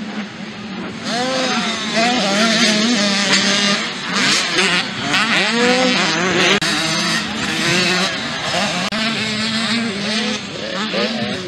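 Several junior motocross bikes racing on a dirt track, their engines revving up and down as the riders accelerate, shift and back off, with more than one engine heard at once.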